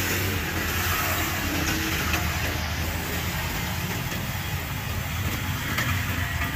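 Steady low rumble of street traffic, with a few light clicks of metal tongs at the fryer.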